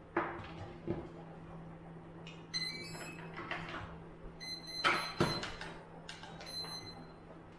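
Handling clicks and knocks as a 4S LiPo battery is plugged into an electric ducted fan thrust-test rig, the sharpest knock about five seconds in. Two short runs of high electronic beeps sound as the rig powers up, over a faint steady hum.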